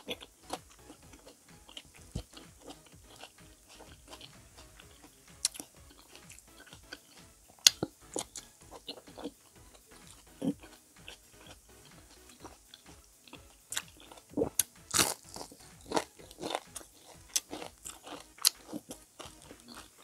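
Close-up crunching and chewing of crispy fried squash fritters (kalabasa okoy), a run of sharp crackles that grows busier and louder in the last few seconds.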